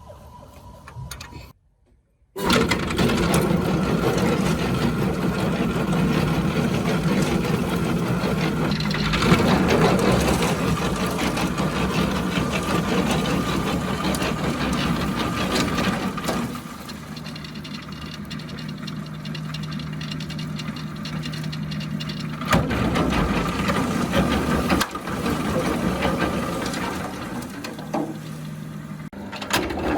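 Restored concrete mixer gearbox running under power with a mechanical rattle. It starts about two seconds in after a brief silence, runs quieter with a steady low hum for a few seconds past the middle, then comes back up to full level.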